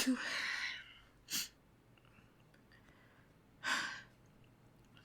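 A woman breathing unevenly while building up to a sneeze: a breathy exhale that trails off in the first second, then two short, sharp breaths about 1.4 s and 3.7 s in.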